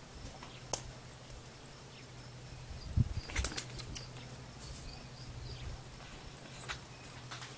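Scattered light clicks and knocks of a pony moving on packed dirt while led on a chain lead shank, with a short cluster about three seconds in.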